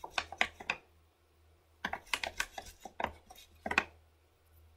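Drawing tools handled at the sketchbook and desk: two runs of quick, light taps and clicks with a short pause between them.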